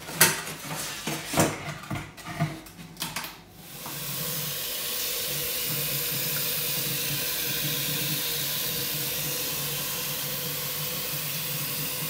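A few sharp knocks and clatters in a stainless steel kitchen sink, then the tap running steadily into the sink from about four seconds in.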